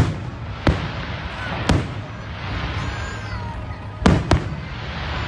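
Aerial firework shells bursting: a string of sharp bangs about a second apart, with two in quick succession about four seconds in, over a steady noisy hiss.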